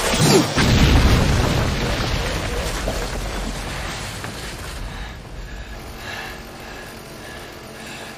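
A heavy boom from a fight-scene impact, loudest in the first second, followed by a rumble that slowly fades away.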